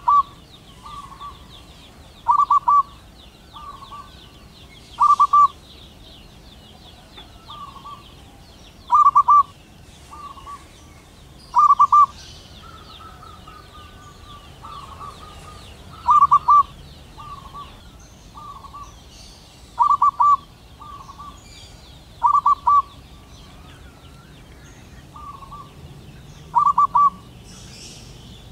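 Male zebra dove cooing its staccato song. Loud clusters of quick high coos come every two to four seconds, nine in all, with softer single coos between them, over a steady faint high chirring.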